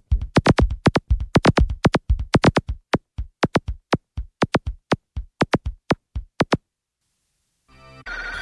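Electronic music: a rapid, stuttering stream of short drum-machine hits, many a second, that cuts off suddenly about six and a half seconds in. A new sound with a wavering tone starts just before the end.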